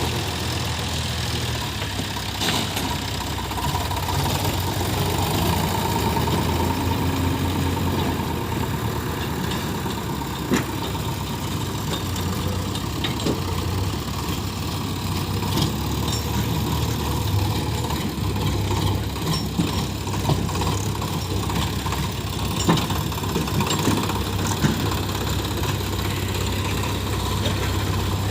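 Diesel engine of a JCB 3DX backhoe loader running steadily at work, with a few sharp knocks.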